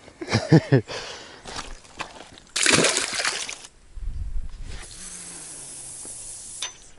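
A landed bream going into the river water with a loud splash lasting about a second, partway through, after a short vocal sound near the start.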